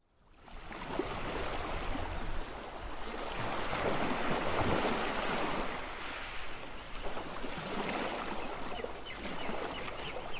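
Sea water splashing and washing, fading in from silence during the first second and going on unevenly.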